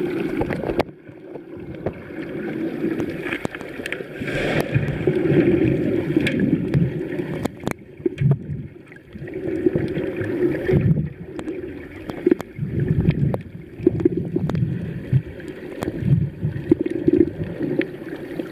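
Muffled water sloshing and gurgling picked up by a camera held underwater, swelling and fading every few seconds, with scattered sharp clicks.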